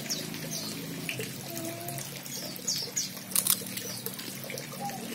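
Steady trickling of water in a backyard fish pond, with small birds giving short high chirps now and then. A couple of sharp clicks about three and a half seconds in.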